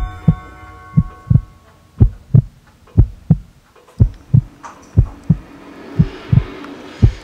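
Heartbeat sound effect: paired low thumps, lub-dub, about once a second, over a faint steady drone. A hiss builds up near the end.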